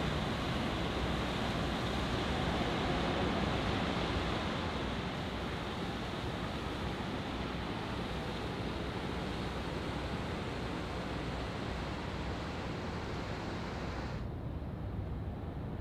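Steady, even rushing noise of outdoor ambience, in the manner of wind and water, with no distinct events. About fourteen seconds in, its higher hiss drops away suddenly, leaving a lower rumble.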